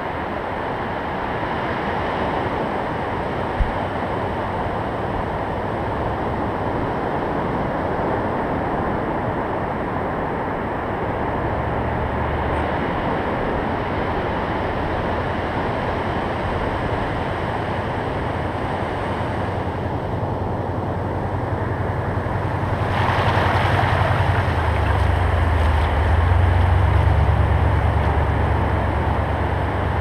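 Ocean surf breaking and washing up the beach in a steady rush. About two-thirds of the way through, a wave's wash surges up around the camera, louder, with a deep rumble underneath.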